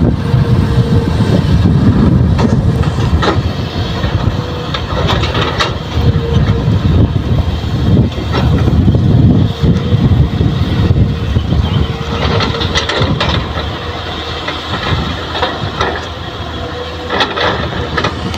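Kobelco excavator's diesel engine running steadily under load, with a faint steady whine and scattered clanks and knocks as it digs and loads soil.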